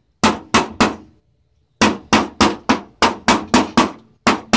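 Sharp metal-on-metal taps as the folded hem edge of a thin sheet-metal patch panel is struck against a steel bar to close the fold. There are three taps, a short pause, then a quick even run of about ten at three to four a second.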